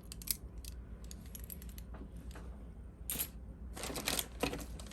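Small clicks and clinks of costume jewelry (beads, chains and plastic pieces) being handled and sorted by hand, scattered at first, then a quicker cluster of rattling clicks near the end.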